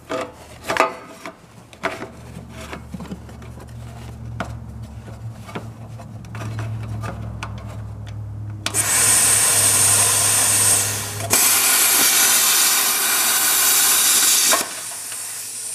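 Plasma cutter cutting through rusted exhaust studs. Scattered clicks and knocks as the torch is worked into position, then a loud steady hiss of the cutting arc starts about nine seconds in, breaks off for a moment and resumes, and stops shortly before the end.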